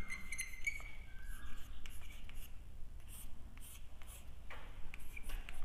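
Chalk writing on a blackboard: irregular short scratching strokes with small taps as words are written out.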